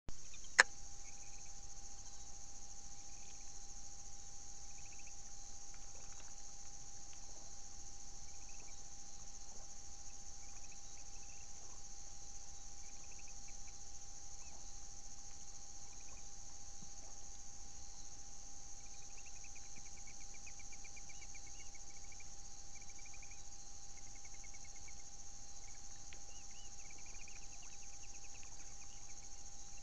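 Night insect chorus of crickets: a steady high-pitched drone, with short chirping calls repeating throughout and a pulsed trill about two-thirds of the way through. A single sharp click comes about half a second in.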